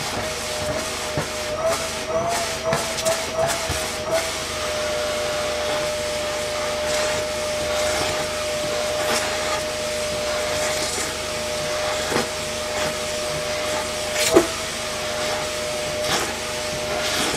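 Vacuum cleaner running, its hose nozzle drawn along the fur-edged cut seam of a mink coat. The motor's whine wavers for the first few seconds as the nozzle is pressed and moved, then holds steady over a rushing hiss, with scattered clicks and one sharp knock about two-thirds of the way through.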